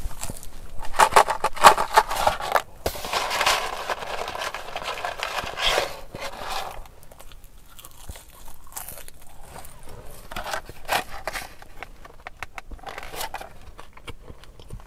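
Close-miked eating sounds of a McDonald's meal: chewing mixed with crinkling paper food packaging, coming in irregular bursts that are loudest in the first six seconds.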